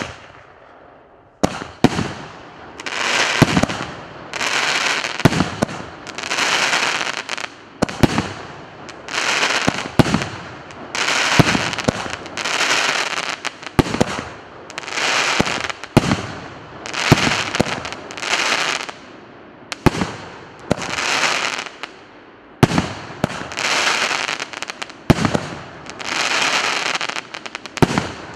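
A 19-shot, 2-inch consumer firework cake (Русская Пиротехника РС932 'Мега Мощный Салют') firing shell after shell about every second and a half. Each shot is a sharp crack followed by about a second of crackling hiss as the stars burst and burn out.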